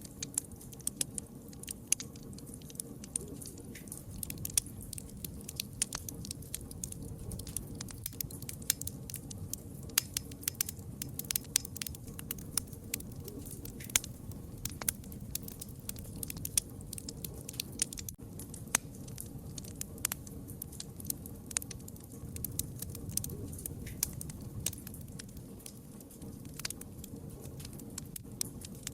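Wood fire crackling: many sharp, irregular pops and snaps, several a second, over a steady low rumble of burning.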